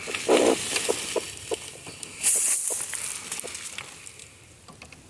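A broody hen's nest being disturbed as her eggs are handled: rustling of nesting material and feathers with small clicks, and a loud hiss about two seconds in.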